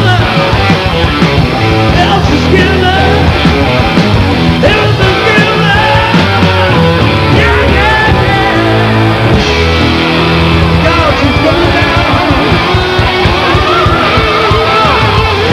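Live rock band playing loud, with electric guitar to the fore.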